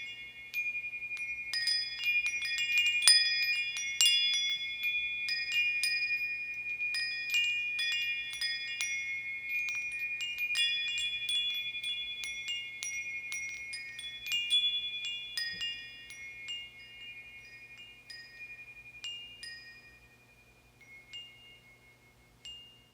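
Metal bar chimes ringing, struck again and again in quick, overlapping runs of high ringing tones. Over the second half the strikes thin out and fade, with a few last single strikes near the end.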